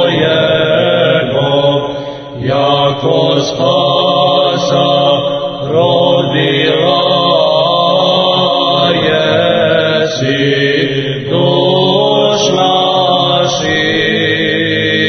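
Orthodox church chant: voices singing slowly in long held notes that glide from pitch to pitch, in phrases separated by short breaks.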